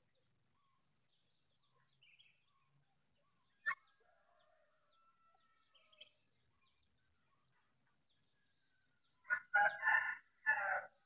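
Helmeted guineafowl calling: faint scattered chirps, then a loud burst of harsh calls in two parts near the end. A single sharp click comes about four seconds in.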